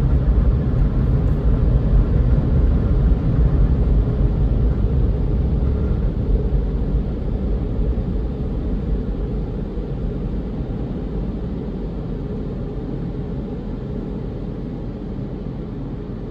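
Car wash air-dryer blowers rushing steadily, heard from inside the car, fading gradually over the second half as the drying stage ends.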